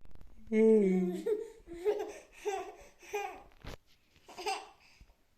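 A baby laughing in a string of short, high-pitched bursts, about two a second, after a brief "ehi" near the start.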